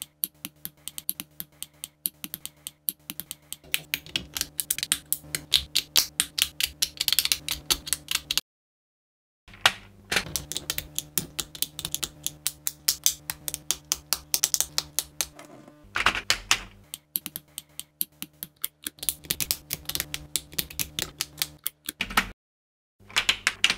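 Plastic building bricks clicking and rattling under the fingers as a brick model is handled and snapped together: fast, dense runs of small clicks with a faint steady hum beneath. The clicking stops dead twice, briefly, where the footage is cut.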